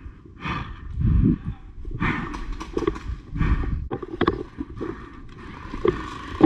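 Running footsteps thudding on a dirt and leaf-litter floor, roughly one stride every 0.7 s, with a few sharp clicks and snaps around the middle.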